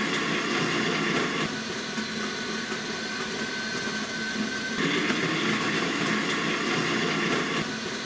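Newly fitted conical burr grinder of a DeLonghi Magnifica S bean-to-cup coffee machine running steadily while grinding beans. It whirs evenly, its tone shifting slightly about 1.5 and 5 seconds in.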